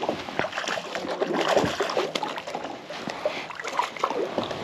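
Water splashing and sloshing beside a kayak, with irregular small knocks and clicks, as a hooked black crappie is brought in and landed.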